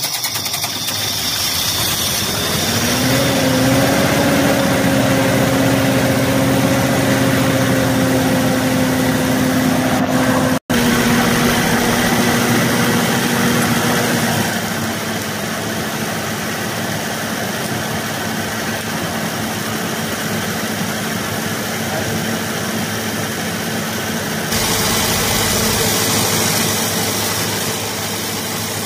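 Fiat 640 tractor's diesel engine running at a steady idle. It picks up speed a couple of seconds in, holds steady, then settles lower and quieter about halfway through.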